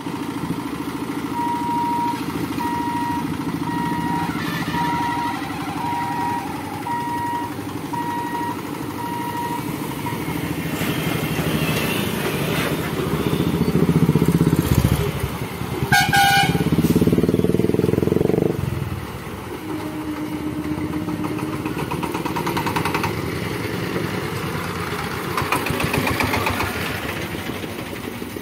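Road traffic crossing a level crossing: motorcycle engines and other vehicles running past, loudest around the middle. A steady, evenly spaced electronic beeping sounds for about the first ten seconds, and a short horn honk comes about sixteen seconds in.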